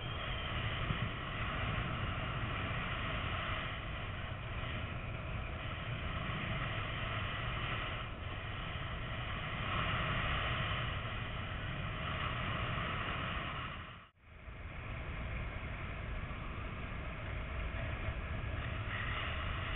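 Flight airflow rushing over a paraglider pilot's GoPro microphone: a steady low rumble under a hiss. The sound drops out for a moment about fourteen seconds in.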